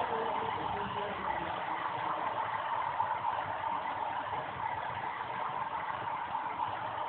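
Airbus A380 jet engines running at low power as the airliner taxis: a steady rushing noise with a hum in the middle of the range.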